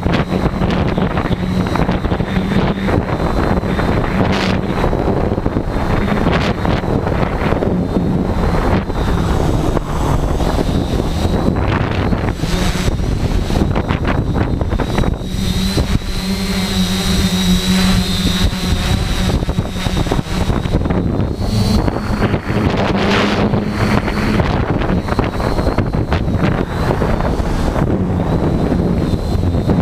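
Gusty wind buffeting the microphone over the steady hum and whine of a Tarot 680 hexacopter's brushless motors and propellers; the hum comes through most clearly about halfway in, where the wind eases for a few seconds.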